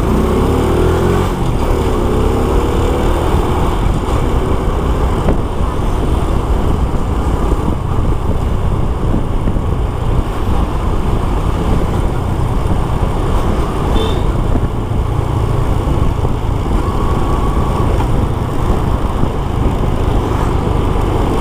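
Honda Supra X 125's single-cylinder four-stroke engine running steadily on the move, mixed with road and traffic noise, its pitch rising and falling briefly in the first few seconds.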